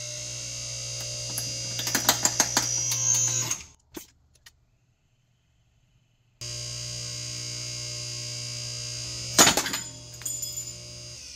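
A hydraulic press's pump motor hums steadily while the ram crushes a small die-cast metal toy truck, which gives a rapid series of cracks and crunches, with the pump's tone rising under load. The sound then cuts out for a couple of seconds. The hum returns, and a single sharp clunk comes about two seconds before the end.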